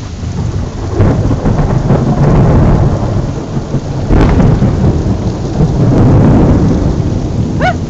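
Loud rolling thunder from a nearby lightning storm over steady heavy rain. The rumble swells about a second in, and a sharp crack comes about four seconds in.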